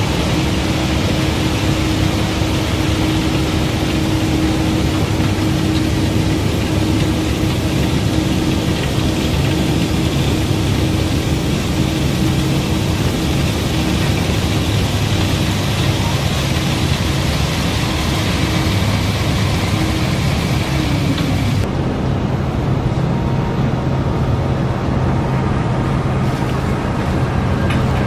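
Barge unloading machinery running steadily: a low engine drone under a continuous hiss of river gravel pouring down through the hold's unloading slot. The hiss thins out suddenly near the end.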